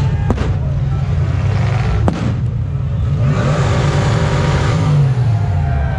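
Rock-crawling truck's engine running and revving hard under load as it climbs over boulders, the revs swelling from about three seconds in. Two sharp bangs, about a third of a second in and again near two seconds in.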